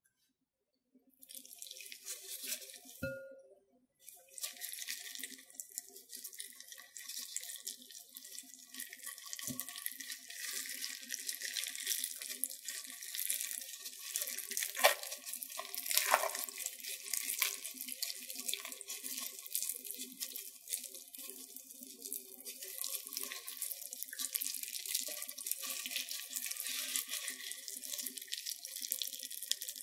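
Raw salmon roe skein being split and pulled apart by gloved hands in a glass bowl: a continuous wet, sticky crackling and squelching as the membrane tears and the eggs come loose. There are a couple of soft knocks early on.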